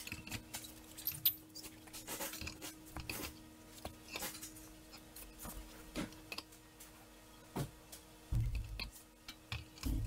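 Scattered light clicks and metal taps as the replacement automatic transmission of a Genesis G70 is handled and worked into place against the engine, with a couple of short dull low thumps near the end. A faint steady hum sits underneath.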